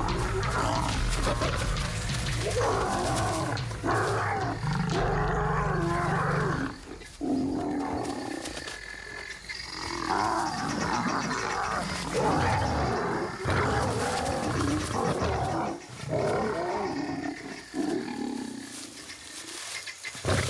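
Male lions snarling and roaring in a run of rough outbursts, each a second or two long with short breaks between, as an adult male drives off a young rival.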